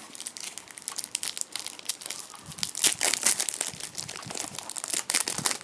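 Foil trading-card wrapper of a Topps Match Attax pack being torn open and crinkled by hand: a run of irregular crackles and rustles.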